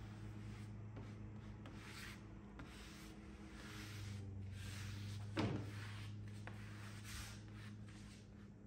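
Faint rubbing strokes as a plastic spreader is drawn across a hard-wax-oiled wooden dresser top, over a steady low hum. A short thump about five seconds in is the loudest sound.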